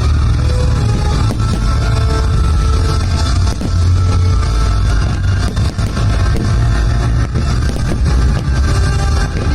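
Loud rock-style music with electric guitar and drums and a heavy bass.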